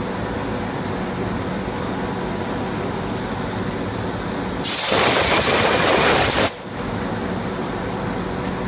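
CNC plasma cutting table running with a steady hiss and hum. About five seconds in, a much louder hiss starts suddenly, lasts just under two seconds and cuts off.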